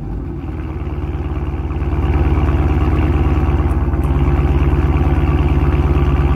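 Car engine idling, heard close at its exhaust tip: a steady, evenly pulsing exhaust note that gets a little louder about two seconds in.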